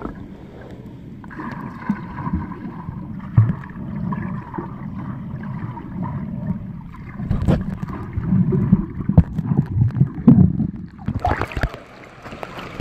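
Muffled water sound from a camera held underwater: sloshing and dull thumps from swimmers' strokes and bubbles, heaviest in the second half. About eleven seconds in the camera breaks the surface, and the sound turns brighter with splashing water.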